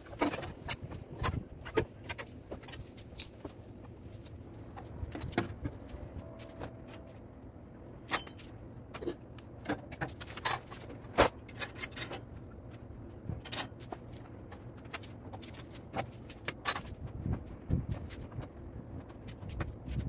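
Clothes hangers clicking and clacking against an overhead drying rail and each other as laundry is hung up with a hanger pole: irregular sharp clicks, a few every second or two, over a steady low hum.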